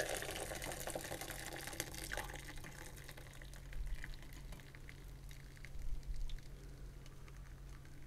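Hot brewed infusion poured from a stainless steel saucepan through a fine mesh strainer into a glass measuring jug, a steady trickle that is fuller for the first couple of seconds and then thins. There are a couple of soft bumps partway through.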